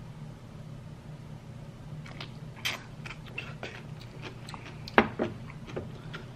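Eating mouth sounds while drinking broth from a ceramic bowl: swallows, wet mouth clicks and lip smacks starting about two seconds in, with a sharp clink about five seconds in as the bowl is set down on the tray.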